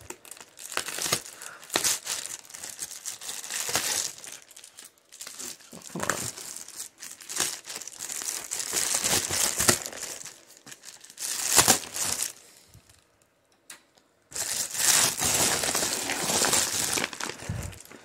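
Plastic bubble mailer crinkling and rustling in irregular bursts as it is opened and handled, with a pause of about two seconds roughly two-thirds of the way through.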